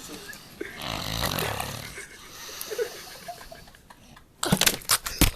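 A man snoring, with one long rasping snore about a second in. Near the end comes a sudden burst of loud knocks and clatter.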